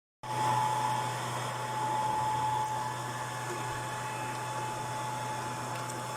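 Hot air rework gun blowing steadily, a continuous airy hiss with a low hum and a faint steady whine.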